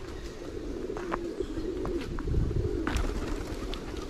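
Low, wavering bird calls that go on without a break, with a few faint clicks and a brief low rumble about two seconds in.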